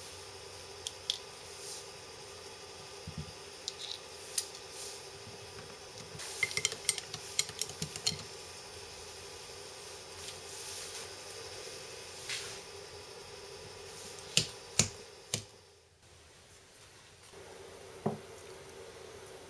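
Metal parts clinking and tapping as a lathe-turned coupler half and hand tools are fitted to a car alternator's shaft: scattered sharp clicks, a quick run of them about six to eight seconds in and a few louder knocks later, over a steady hum.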